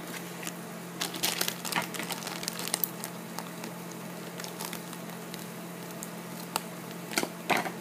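Foil blind-bag packet crinkling and crackling in scattered bursts as it is handled and cut open with scissors.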